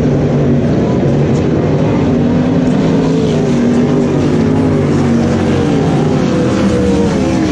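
Several LS1 V8 sprintcars racing around a dirt speedway oval. Their overlapping engine notes rise and fall as the cars pass and circulate.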